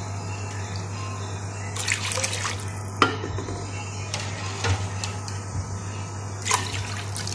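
Milk being ladled and stirred in a metal cooking pan: liquid sloshing with several sharp clinks of the metal ladle against the pan, over a steady low hum.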